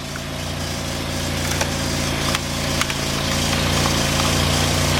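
Dodge Neon engine idling steadily with the air conditioning running, a few faint clicks about midway.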